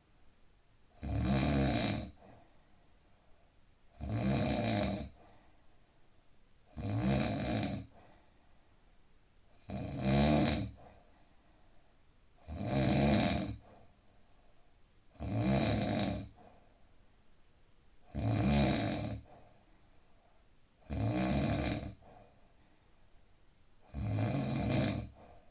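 A man snoring in deep sleep: a loud snore about a second long comes roughly every three seconds, nine times, with quiet breathing between.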